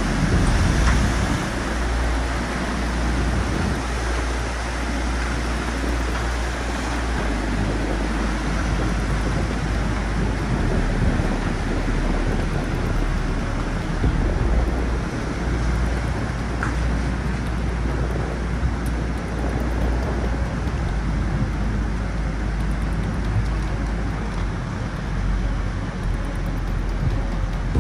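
Tsunami floodwater rushing across flooded coastal ground: a steady, noisy rush with a deep rumble underneath.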